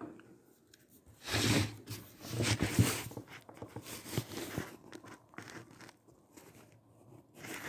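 Rustling and crinkling handling noise, with two louder scrapes early on and then scattered light knocks and clicks, as the camera is picked up and moved over the work cloth.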